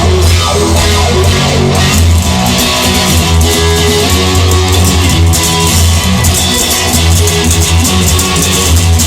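Instrumental break of a rock song: guitars strumming over a steady bass line.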